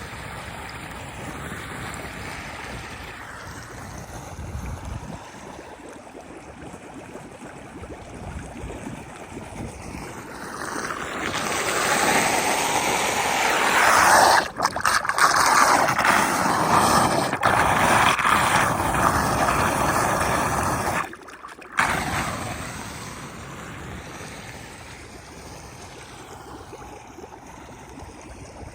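Floodwater rushing and gurgling into a street drain. The sound is a steady noise of water that swells much louder through the middle, cuts out briefly twice, then settles back.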